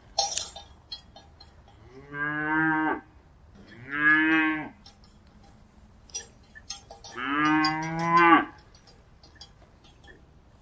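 Cattle mooing: three long moos, each about a second long, the last the loudest. Sharp clicks and knocks are heard in between, loudest just after the start.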